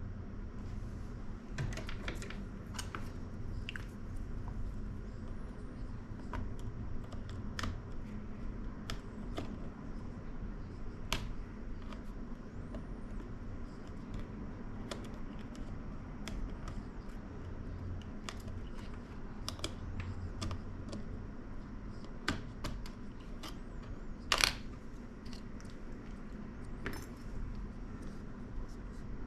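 Scattered light clicks and small metallic taps of small tools and parts being handled on a workbench during a laptop repair, with one louder clatter late on, over a steady low hum.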